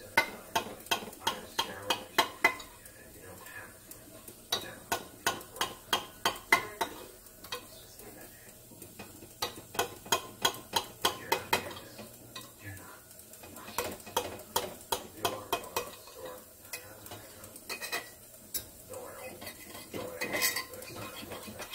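A knife scraping and clicking against the sides of a glass loaf pan as it is run around a freshly baked meatloaf to loosen it. The clicks come in quick runs, about three a second, with short pauses between runs.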